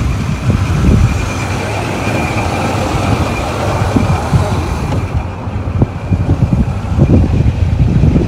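Wind buffeting the microphone in uneven low rumbling gusts that grow stronger near the end, over a steady background hiss.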